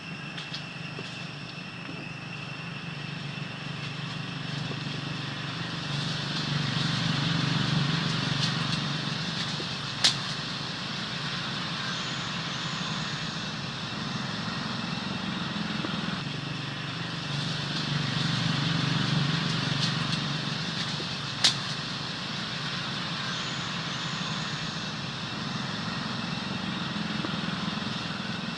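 Road vehicles passing twice over a steady outdoor background with a constant high whine, and two sharp clicks, one about a third of the way in and one about three quarters in.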